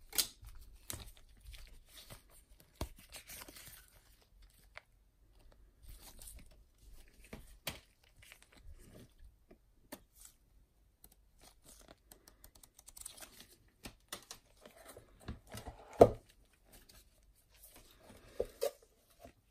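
Gloved hands handling a watch box with its paper booklets and cushion: rustling and crinkling of paper and card, with scattered soft clicks and taps. One much louder knock comes late on, followed by two smaller ones.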